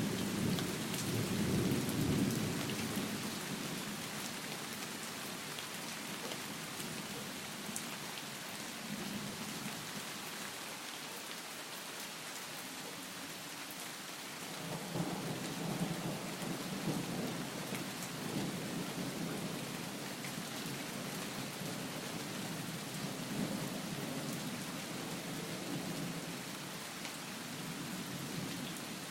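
Steady heavy rain with rolling thunder. The thunder rumbles in the first couple of seconds, then swells again from about halfway through and fades out over the following ten seconds.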